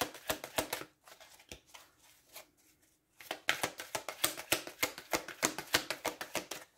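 Deck of oracle cards being shuffled by hand: rapid runs of card clicks and flicks, a short run at the start and a longer one from about three and a half seconds in to near the end.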